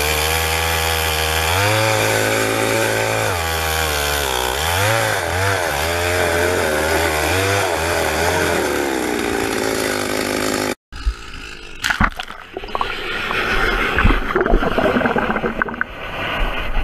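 Gas-powered ice auger running and boring into lake ice. Its engine pitch steps up as it is throttled, then wavers up and down as the bit bites and is worked. About eleven seconds in it cuts off abruptly, and irregular muffled knocks and rumbling follow.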